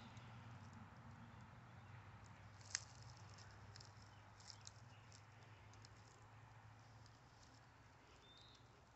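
Near silence: faint outdoor quiet with a low steady hum, one sharp click about three seconds in, scattered faint ticks, and a short high chirp near the end. No gobbling is heard.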